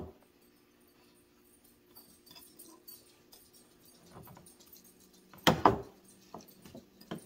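Soft rubbing and small clicks of a block of butter being spread around the inside of a nonstick frying pan. There is a sharp knock at the very start and a louder clunk about five and a half seconds in.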